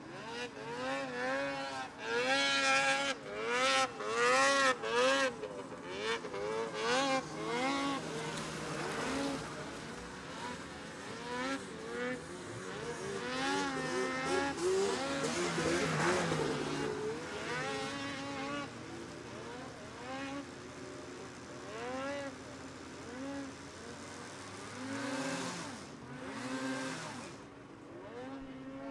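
Polaris 600 two-stroke snowmobile engine revving hard under load as the sled climbs a steep snow slope. The engine note surges up and down over and over as the rider works the throttle, with the quickest swings in the first several seconds and steadier running later.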